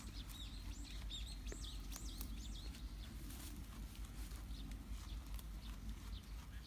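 Small birds chirping in quick, high, rising-and-falling notes, busiest in the first three seconds and thinning out after, over a steady low rumble of outdoor background noise.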